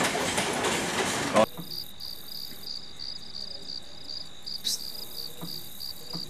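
Loud rumble and rattle of a train on the tracks, cut off abruptly about a second and a half in. Crickets then chirp in a steady rhythm of about three chirps a second.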